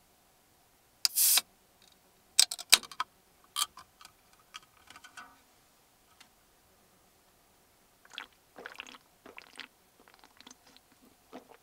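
A can of non-alcoholic beer opened by its pull tab: a short pop and hiss of escaping gas about a second in, then a few sharp clicks of the tab and can being handled. Softer short rustles and clicks follow near the end.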